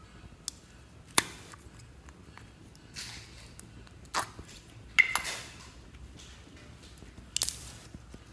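A plastic slime container being opened and emptied: a series of separate sharp plastic clicks and snaps, the loudest about a second in and about five seconds in, with softer squishes of slime being pulled out of the cup.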